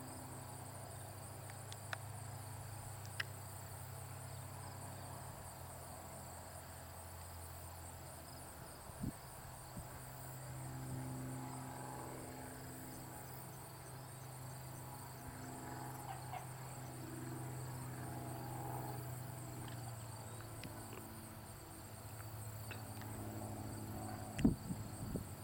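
Cessna 172's piston engine droning faintly at low power through approach, touchdown and rollout, its pitch shifting partway through. A steady chirring of crickets or other insects runs underneath, with a few sharp knocks near the end.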